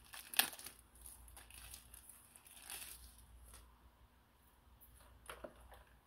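Faint crinkling and rustling of a thin plastic wrapper being pulled off a new robot-vacuum dustbin filter, with a few small plastic clicks from the filter and bin.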